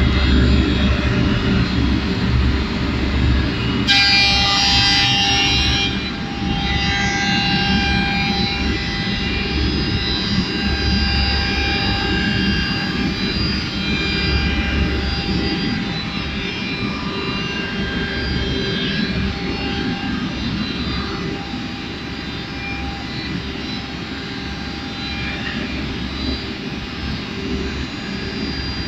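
Four-side wood moulder running steadily, a continuous machine hum with several steady whining tones from its spinning cutter heads and spindle. About four seconds in, a louder, higher-pitched whine sets in for about two seconds, as of the cutters taking the wood, then settles back to a steadier run.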